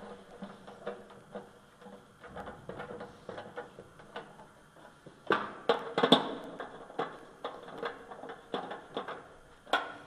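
Irregular clicks and knocks as a furnace's sheet-metal blower housing and a screwdriver are handled and fitted into the cabinet, with a cluster of louder knocks about five to six seconds in and one more near the end.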